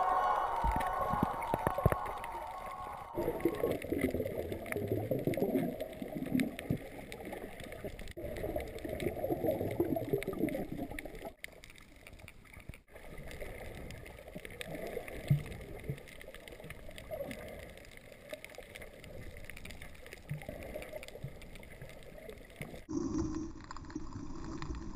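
Muffled water sloshing and gurgling heard through a GoPro's waterproof housing as it moves underwater, changing abruptly several times. Music fades out over the first few seconds.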